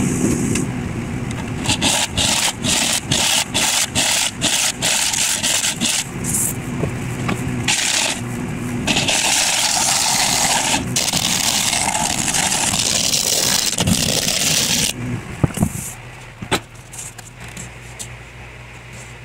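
Steel scraper cutting the inside of a spinning spalted gumbo limbo bowl on a wood lathe: a run of short scraping passes, about two a second, then one long continuous scrape lasting several seconds. The cutting stops a few seconds before the end, leaving a low steady hum.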